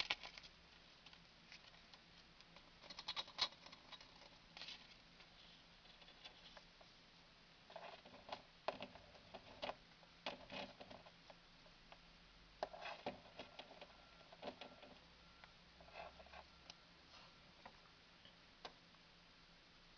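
A parrot shredding paper with its beak: irregular soft crackles, clicks and tearing sounds in scattered clusters, with quiet gaps between them.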